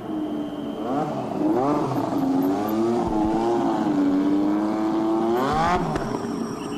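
Formula One racing car engine revving through the gears, its pitch rising and falling, holding steady for a moment, then climbing steeply before dropping abruptly near the end at a gear change.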